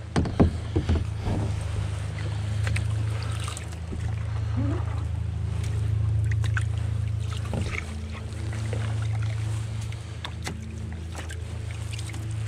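Canoe on a high-water river in white water: steady rush of water around the boat, with a few sharp knocks about half a second to a second and a half in.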